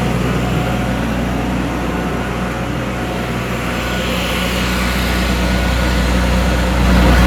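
An engine running steadily, with a low even hum that gets louder near the end.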